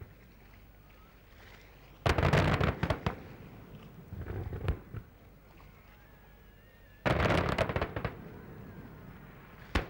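Fireworks exploding overhead: a rapid crackling cluster of bangs about two seconds in, a smaller cluster a couple of seconds later, another crackling cluster about seven seconds in, and a single sharp bang near the end.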